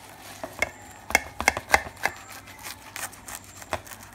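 Kitchen knife sawing through a butter-toasted grilled sandwich, the crisp crust crackling in a quick run of sharp crunches that is loudest from about one to two seconds in, then thins to a few scattered crackles.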